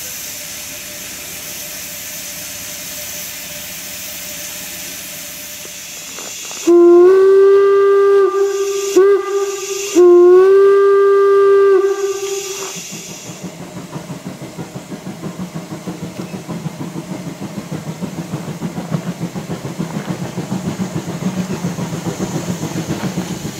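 Saxon class VII K narrow-gauge steam locomotive letting off a steady hiss of steam, then sounding its steam whistle in two long blasts with a short blip between them. After that comes the regular chuffing of its exhaust as it works the train.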